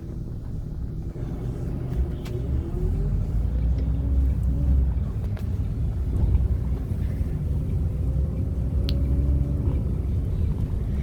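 Coach engine and road rumble, a deep drone that grows louder over the first couple of seconds. The engine note rises and dips as the coach pulls along, with a few light clicks.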